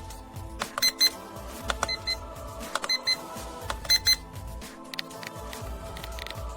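Digital alarm clock's alarm beeping in quick double beeps, about one pair a second, four pairs, stopping about four seconds in. Background music plays under it throughout.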